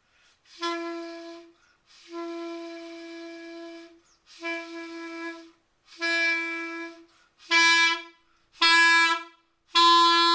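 Clarinet honking: seven separate blown notes on the same pitch, each held from about half a second to nearly two seconds with short breaths between. It is a dynamics exercise, softer in the middle and growing louder toward the end, with no attention to a nice tone.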